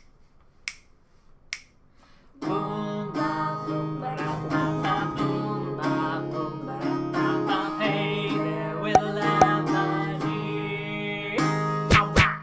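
Background music: a few sharp clicks, then a guitar-led tune with sustained notes that starts about two seconds in.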